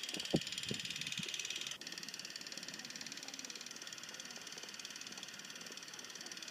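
Film-projector clatter effect from a Super 8 camera app: a fast, steady mechanical ticking with a few low knocks in the first second or so, the loudest about a third of a second in.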